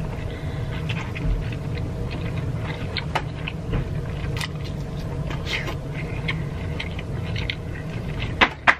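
Close-up eating sounds of king crab leg meat: wet sucking, slurping and chewing with scattered short mouth clicks and smacks, over a steady low hum.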